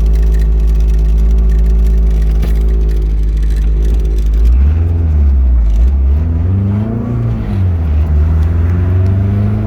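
Turbocharged Honda D16 engine running under way, holding a steady drone for about four and a half seconds, then rising and falling in pitch several times as the revs change. The engine had bad misfires, breaking up as the revs climbed, which the owner traced to a cracked coil in the distributor.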